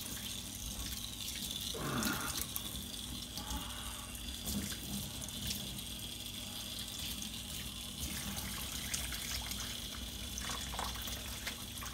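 Water running steadily from a kitchen sink's pull-down sprayer, rinsing a wet dog standing in the stainless steel sink.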